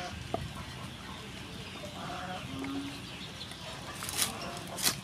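Cleaver cutting through crispy pork crackling on a wooden cutting board, the crisp skin crunching, with two sharp louder crunches near the end. Short animal calls sound in the background.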